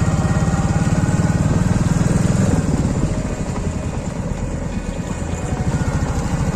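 Royal Enfield Classic 350's single-cylinder engine running under load as the motorcycle climbs a rough hill track, in fast, even firing pulses. The engine gets a little quieter about two and a half seconds in, as the throttle eases.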